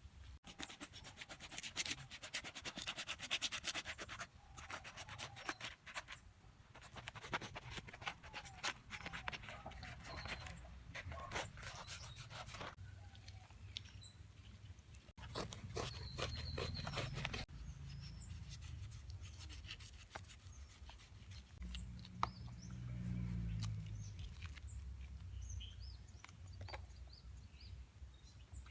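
Ripe jackfruit being handled by hand: long runs of dense crackling and rubbing, thinning out in the second half. Faint bird chirps in the background.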